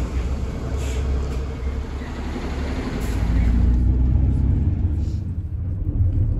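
Minibus engine rumbling. It is louder and deeper from about halfway through, heard from inside the cabin, with a few clicks in the first half.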